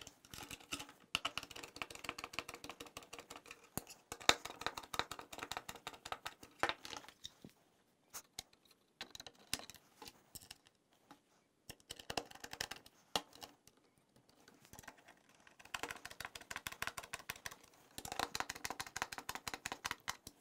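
Hand screwdriver driving screws through metal brace rods into plastic drawer-slide parts: soft bursts of rapid small clicks and scraping, several runs of a few seconds each with short pauses between.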